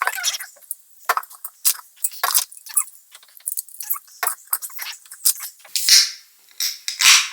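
An aluminium energy-drink can being handled, with many sharp metallic clicks and taps as the ring-pull is worked. Near the end it cracks open with short fizzing hisses.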